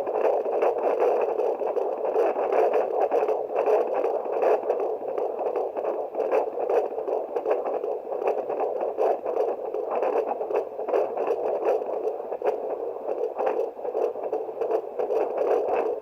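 Handheld fetal doppler's speaker giving out its ultrasound signal from a pregnant belly during a fetal heart rate check: a steady rushing noise with rapid crackles.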